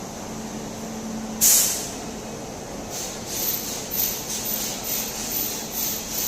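Indian passenger train running, with a steady rushing noise. A short loud hiss comes about a second and a half in, and a rapid run of regular hissing pulses fills the second half.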